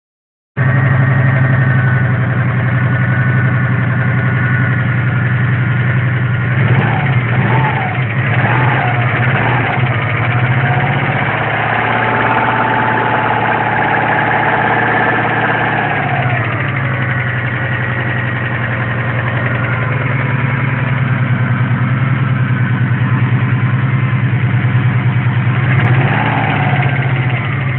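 Subaru EJ205 flat-four engine in a first-generation Forester running with a steady knock, its revs shifting briefly a couple of times. The knock comes from spun crankshaft bearings.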